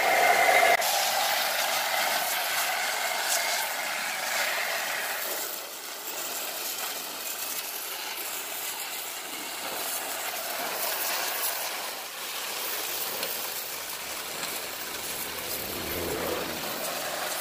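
Homemade wet sandblaster at work: a pressure-washer water jet drawing sand from a funnel hopper and spraying it onto a motorcycle cylinder head inside a steel box, a steady hissing rush. It is louder for the first second.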